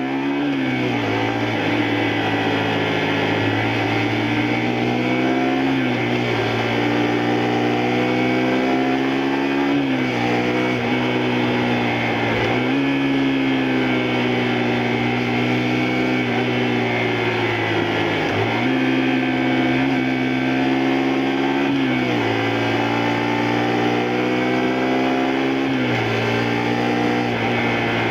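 A 2002 Honda Varadero 125's 125 cc V-twin engine is under way on the road. The revs climb steadily and then drop sharply at each gear change, six or seven times.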